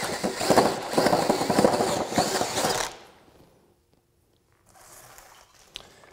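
Craftsman V20 brushless RP cordless drill, in low gear, driving a 2 9/16-inch bore bit through a wooden board, the bit chewing out wood chips under heavy load. The drilling stops about three seconds in, followed by faint handling sounds and a few clicks near the end.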